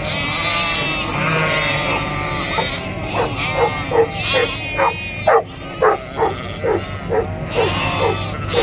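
A flock of sheep and lambs bleating in an overlapping chorus. About three seconds in, a sheepdog starts barking in short, rapid barks, about three a second, over the bleating. A low engine hum runs beneath.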